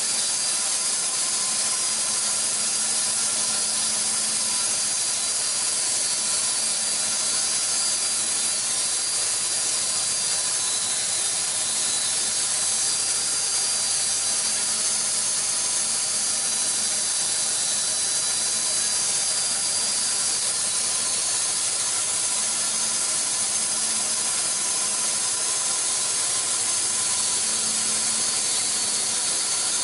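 AMIX PT-100 horizontal band sawmill running with no log in it: its electric drive motor and band blade make a steady hiss with a faint, even whine.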